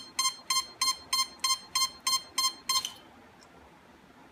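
Quanum Nova quadcopter giving a rapid string of electronic beeps, about three a second, that stops about three seconds in. It is a warning at power-up that the owner puts down to a problem with the speed control.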